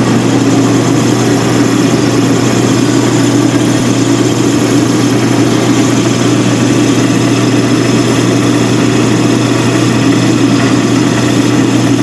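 Metal-turning lathe running at a steady speed: an unbroken machine drone with a strong low hum from the motor and spindle drive.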